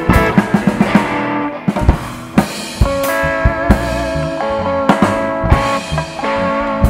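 Blues band playing live: electric guitars over bass and drum kit, with no vocals. Quick drum strikes come in the first second or so, then held, wavering guitar notes from about three seconds in.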